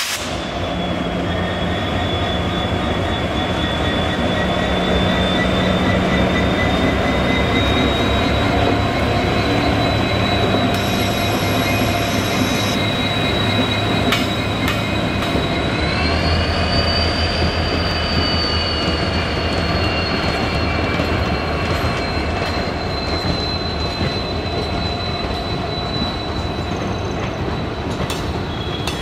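Diesel locomotive running as it passes, then its passenger coaches rolling by. A thin high-pitched wheel squeal whines steadily over the rumble, rising a little in pitch about halfway.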